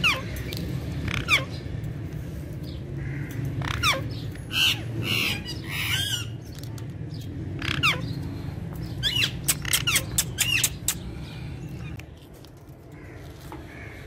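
Alexandrine parakeets squawking: repeated short, harsh calls, each falling in pitch, coming in scattered bursts and busiest around four to six seconds in and again around nine to eleven seconds. A steady low rumble sits underneath and fades about twelve seconds in.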